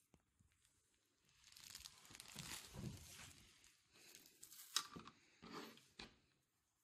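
Knife slicing through a raw trout fillet on a plastic cutting board: a soft rasping cut lasting a couple of seconds, then a few sharp taps near the end.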